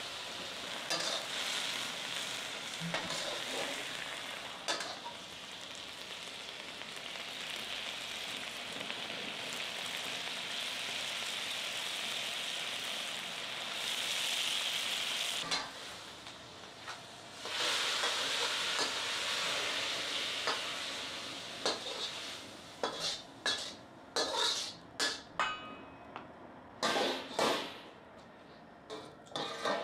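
Vegetables sizzling hard in a steel wok over a propane burner while a metal spatula stirs them. In the last several seconds the sizzle thins into a run of short, sharp scrapes and knocks of the spatula against the wok.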